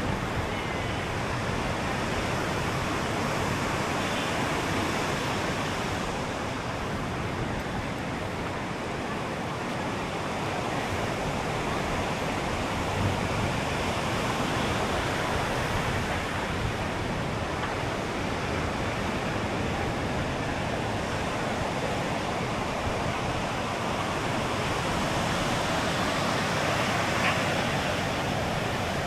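Sea surf: a steady rush of waves breaking and washing ashore that swells and eases gently.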